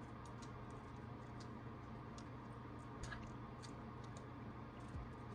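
Faint scattered clicks and light scraping of small tools working the iPhone 8's vibration motor back into its mount, over a steady low hum.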